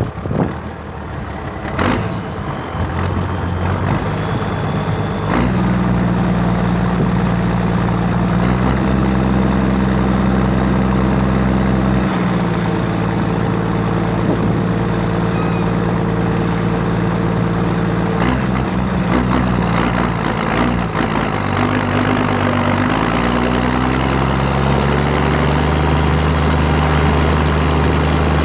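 Valtra BH180 tractor's diesel engine running loud through a straight pipe. Its revs step up about five seconds in, drop around twelve seconds, then climb around twenty seconds and hold at a higher steady pitch. A couple of knocks sound at the start.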